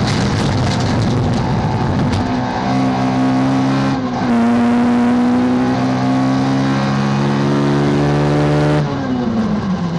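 Peugeot 206 rallycross car's engine heard from inside the cockpit, run hard at high revs. In the first couple of seconds there is a gritty rattle from the loose dirt surface. About four seconds in, a quick gear change drops the revs slightly, then the engine holds a steady high note. Near the end the revs fall away as the driver lifts off.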